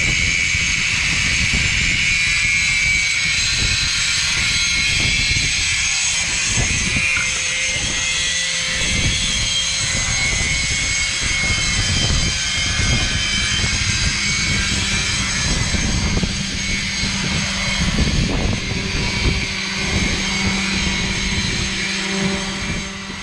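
Electric angle grinder and sanders grinding down a sailboat's hull and steel keel, running with a steady high whine; a lower steady hum joins about halfway through.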